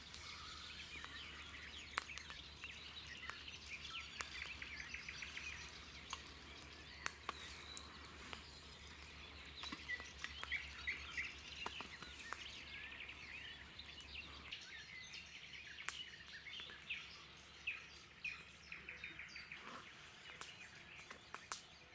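Small birds chirping and singing, many short calls and trills overlapping, with a faint low hum underneath that stops about two-thirds of the way through.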